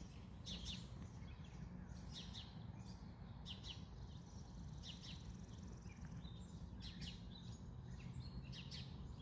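Small songbirds chirping in short, scattered high calls about once a second, faint over a steady low background hum.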